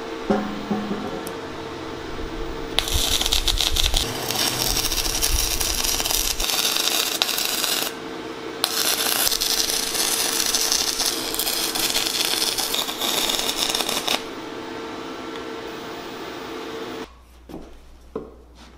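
Electric arc welding on a metal bracket: the arc crackles in two runs of about five seconds each, with a short pause between. A steady hum runs underneath and cuts off near the end, leaving a few light knocks.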